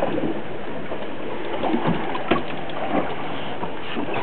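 Steady rushing background noise of water around a small fishing boat, with a short knock a little past two seconds in.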